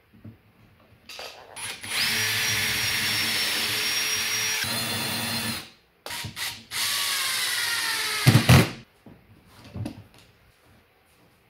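Power drill running in bursts: a few short blips, then a steady run of about three and a half seconds, then a second, shorter run that ends in a heavy knock.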